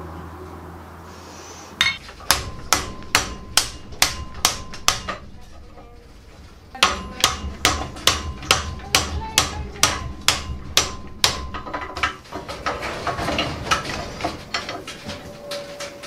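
Hand hammer striking a hot steel door-knocker ring held on a vise-mounted bending fork, metal-on-metal blows at about two a second, each with a short ring. A run of about eight blows, a pause of about two seconds, then about a dozen more, then lighter, quicker taps near the end.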